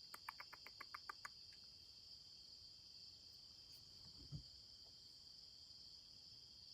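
Faint, steady chirring of crickets. A quick run of about eight clicks in the first second and a half, and a soft low thump about four seconds in.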